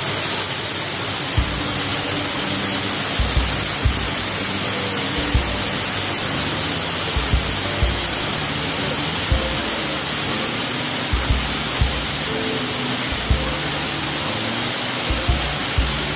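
Steady rushing roar of a waterfall pouring into a plunge pool, with faint music and irregular low thumps every second or two underneath.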